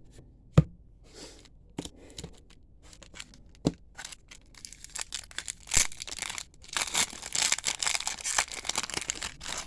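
Trading card pack wrapper being torn open and crinkled by hand: a few sharp taps and clicks, then about five seconds of dense crackling and tearing of the wrapper.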